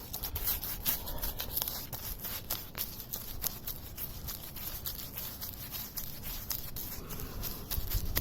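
Paintbrush slapping thick, sticky hull blacking onto a narrowboat's steel hull: a run of irregular short sticky clicks and slaps.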